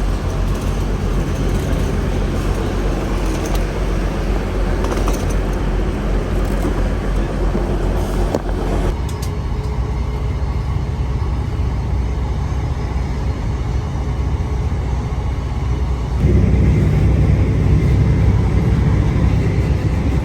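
Steady rumble and running noise of a moving vehicle heard from inside. The higher hiss eases about nine seconds in, and the low rumble grows louder from about sixteen seconds in.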